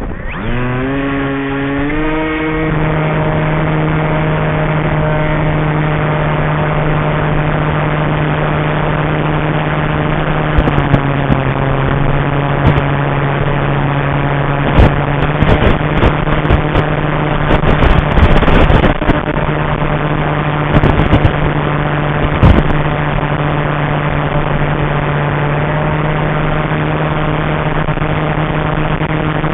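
The electric motor and propeller of an FPV flying wing spin up over about two seconds, then run with a steady whine. Loud gusts of strong wind buffet the microphone with rumbles and knocks from about halfway through.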